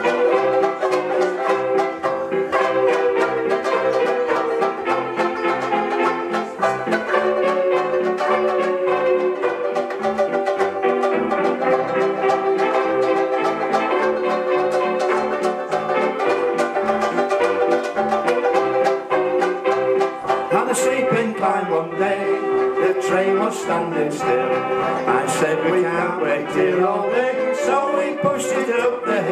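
Two banjo ukuleles strumming a steady, up-tempo rhythm in an instrumental break of the song, over a backing accompaniment.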